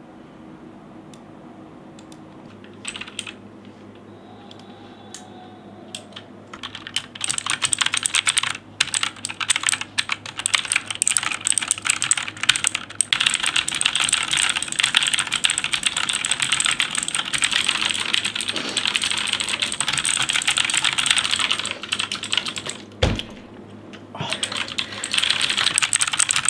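Fast typing on a backlit computer keyboard. A few scattered key clicks come first, then from about seven seconds in a continuous clatter of rapid keystrokes. Near the end the typing stops briefly with a single dull thump, then starts again.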